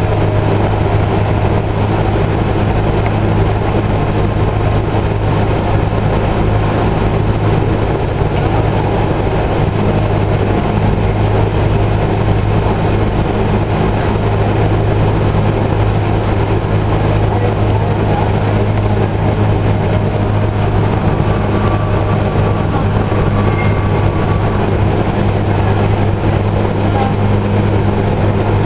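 Interior of a Kinki Sharyo light rail car running along the line: steady running noise with a constant low hum.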